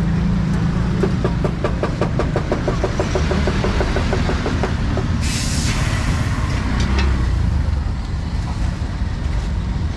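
Street traffic with motorbike engines running close by, a steady low rumble. For a few seconds a fast, even ticking of about ten beats a second runs over it, and about five seconds in there is a short, loud hiss.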